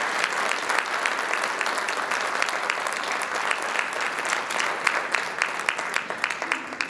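Audience applauding, a dense clapping that thins out near the end into fewer, separate claps.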